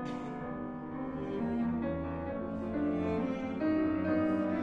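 Background music: slow, classical-style bowed strings such as cello with piano, held notes changing every second or so.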